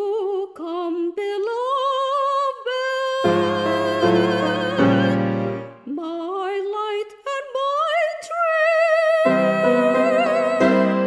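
Female voice singing a classical art song with wide vibrato, accompanied by piano. The line climbs steadily to a long held high note, with piano chords coming in twice beneath it.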